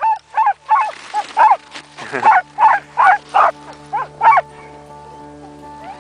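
Team of harnessed sled dogs barking and yelping in quick succession, about three calls a second, stopping about four and a half seconds in. Steady music tones come in underneath from about a second and a half.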